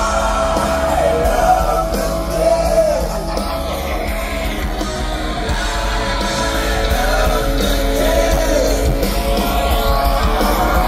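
Live rock band playing loud and continuous: electric guitars over strong low bass, with vocals whose pitch slides up and down.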